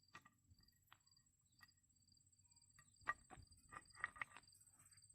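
Near silence: faint cricket chirping, evenly repeated about twice a second over a thin steady high whine, with a few light clicks and taps between about three and four and a half seconds in.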